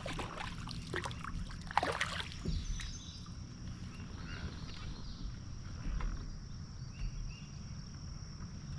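A few knocks and rattles of gear being handled in a kayak during the first two or three seconds, over a low rumble. From about two and a half seconds in, a thin steady high-pitched insect drone carries on.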